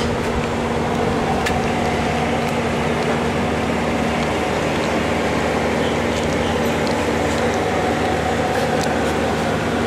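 A steady mechanical hum: a constant drone with a few steady tones over an even noise, with a few faint ticks.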